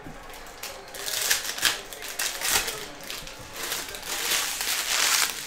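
A stack of glossy Panini Prizm basketball cards being flipped through and handled: quick clicks and slides of card against card, with a longer rustle about four seconds in.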